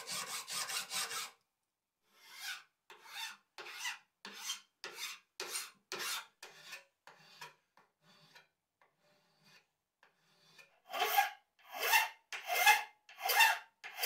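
Steel hand file rasping back and forth across a folding knife's aluminum handle scales and steel nail pins, about two strokes a second. The strokes die away for a moment, then come back louder near the end.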